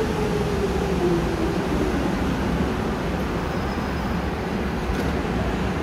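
Berlin U-Bahn small-profile train running past along the platform and out of the station, with a steady rumble of wheels on rails. A whine falls in pitch over the first two seconds.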